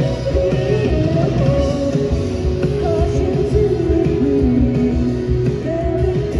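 Indie rock band playing live: electric guitars and drums, with a woman singing.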